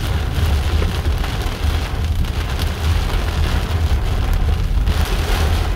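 Cyclone wind and rain: a steady rushing storm noise, with a heavy low rumble of wind buffeting the microphone.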